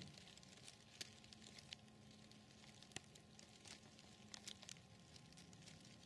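Near silence with faint, scattered ticks and crackles of dry leaf litter and pine needles, the sharpest about a second in and about three seconds in.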